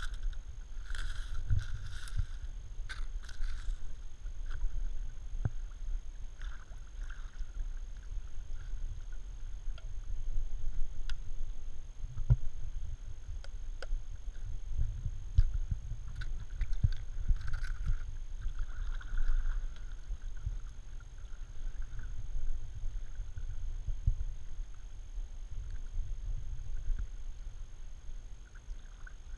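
Kayak paddling on a shallow creek: the paddle dipping and splashing, with scattered sharp clicks and knocks. A steady low rumble on the bow-mounted camera runs underneath.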